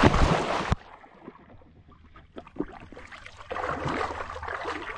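A border collie plunging into a pool with a loud splash that ends under a second in, then water sloshing and dripping around her as she wades and swims.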